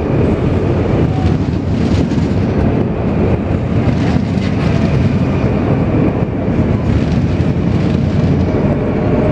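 NS VIRM double-deck electric multiple unit running into a station platform close by: a loud, steady rumble of steel wheels on rail, with a faint whine above it.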